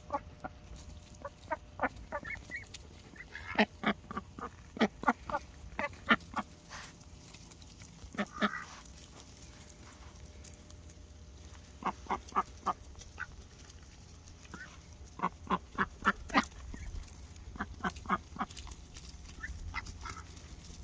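A flock of ducks, mallards among them, quacking in repeated runs of quick, short quacks, a few a second, with pauses of a second or more between the runs.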